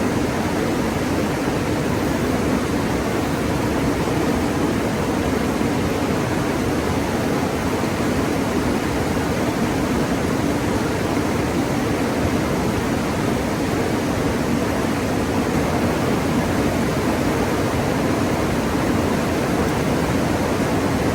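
Steady rush of the Rio Grande's flowing water where the Red River meets it, an even noise with no breaks.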